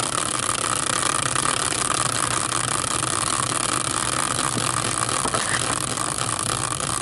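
Caster-wheel prize wheel spinning freely on its axle on a metal bracket, giving a steady whirring hiss with no clicks.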